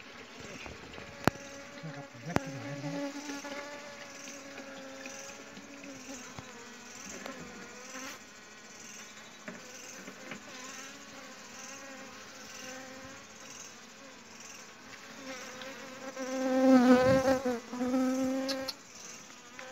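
Honey bees buzzing at their comb, many wings droning together as a steady hum. Two sharp clicks come in the first few seconds, and about 16 seconds in one buzz grows much louder for about two seconds, its pitch wavering.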